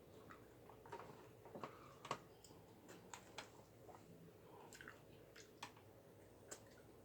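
Faint chewing: a person eating, with irregular soft clicks and smacks of the mouth.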